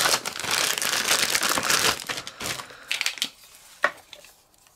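A clear plastic bag crinkling as a hand rummages in it and pulls out a small plastic Memento Dew Drop ink pad. It is followed by a few light clicks from the plastic pads being handled, then quiet.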